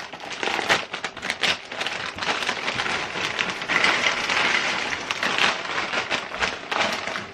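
Kettle-cooked potato chips poured from their bag into a bowl: a dense, steady crackling rattle of many chips tumbling against each other and the bag.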